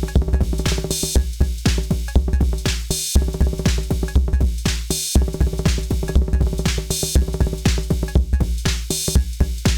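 Arturia DrumBrute Impact analog drum machine playing a busy rhythmic pattern: heavy kick, pitched tom and FM-drum hits and bright cymbal and hi-hat splashes, with short breaks every couple of seconds.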